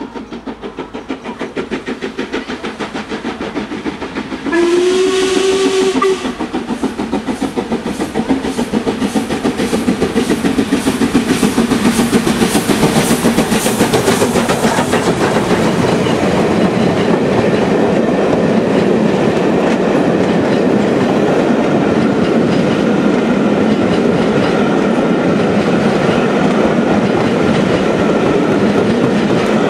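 LMS Princess Coronation class 4-6-2 steam locomotive 46233 Duchess of Sutherland passing at speed: it sounds its whistle once, about four and a half seconds in, for about a second and a half, then its exhaust beats rhythmically as it draws level, and its coaches follow with a steady clickety-clack of wheels over the rail joints, growing louder.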